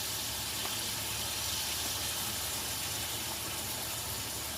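Chicken sizzling and bubbling in a hot oiled pan as soy sauce is poured in, a steady liquid hiss.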